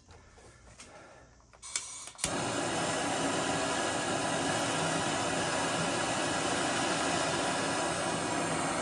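Gas plumbing torch lit with a few clicks about two seconds in, then burning with a steady hiss. The flame is heating a soldered copper joint on the main water line to melt the solder and free the old shut-off valve.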